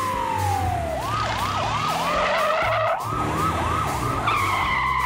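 Police siren: a tone falling in pitch through the first second, then a fast up-and-down wail for about three seconds, then falling again near the end, over a low steady hum.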